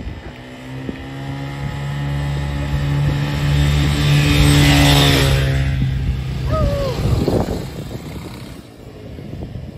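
A motor vehicle passing by: a steady engine drone that builds to its loudest about halfway through and then fades away. A short falling chirp is heard just after the peak.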